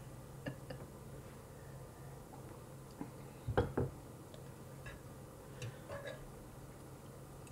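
A cup set down on a table with a double knock about three and a half seconds in, then light clinks of a metal fork against a nonstick skillet as food is picked up. A faint steady low hum runs underneath.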